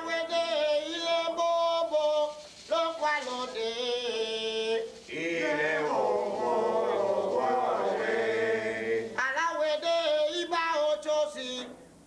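Men singing an Afro-Cuban rumba chant together, in phrases with short breaks between them.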